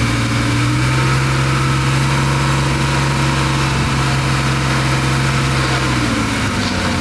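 Bulldozer's diesel engine running steadily, its pitch rising slightly about half a second in and dropping back about six seconds in.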